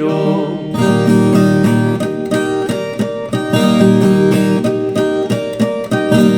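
The sung end of a country-song verse, then an instrumental break of plucked and strummed viola caipira with a bass line, the notes picked out in quick succession.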